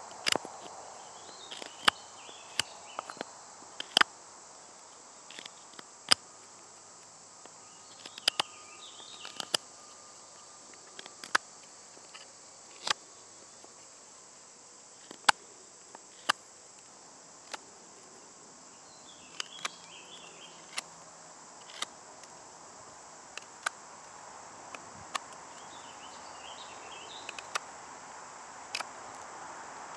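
Fixed-blade knife shaving and carving the end of a wooden stick, with sharp, irregular cuts about once a second. A steady high drone of insects runs underneath.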